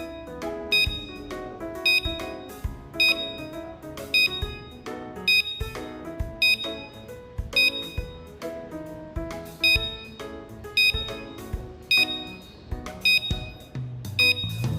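Background music with a steady beat and bright, high, ringing notes about once a second.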